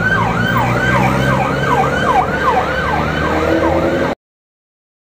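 Emergency-vehicle siren yelping: a rapid falling sweep repeated about three times a second, over a steady low hum. It cuts off abruptly about four seconds in, where the camera is switched off.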